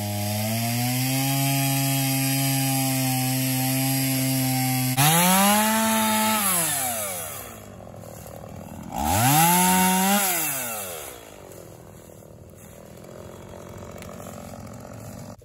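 Two-stroke chainsaw running steadily at high revs, then revved twice, each time climbing and dropping back. It settles to a much quieter idle for the last few seconds.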